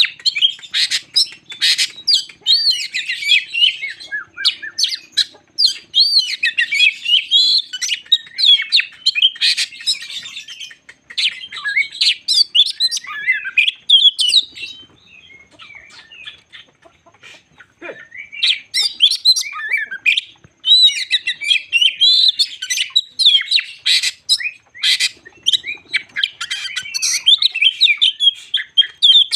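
Oriental magpie-robin (kacer) singing a loud, rapid run of varied whistles, chirps and sharp clicks. The song eases off for a few seconds about halfway through, then starts again at full strength.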